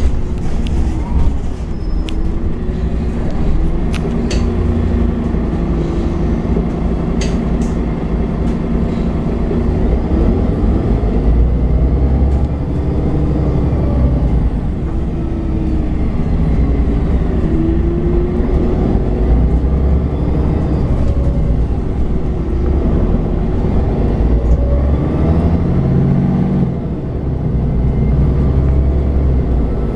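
MAN Lion's City 12C city bus under way, its MAN D1566LOH diesel and Voith automatic gearbox running with a deep rumble while the engine note rises and falls as the bus speeds up and slows. A few sharp rattles or clicks come in the first several seconds, and the sound drops briefly near the end.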